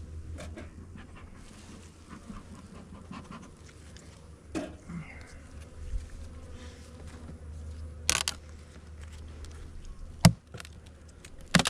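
Honey bees buzzing steadily around an open beehive. A few sharp knocks and clatters from the hive parts being handled cut in, the loudest about ten seconds in and a pair near the end.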